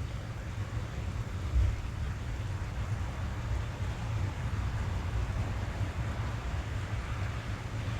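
Rain drumming on a car's roof, heard from inside the cabin: a steady hiss over a deep low rumble, with a brief low thump about one and a half seconds in.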